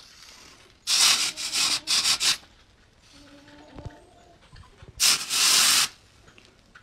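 Red-hot forged steel knife blade, made from a drive shaft, hissing and sizzling as it is dipped into a water trough to quench it. Three quick hisses come about a second in, then a longer one lasting about a second around five seconds in.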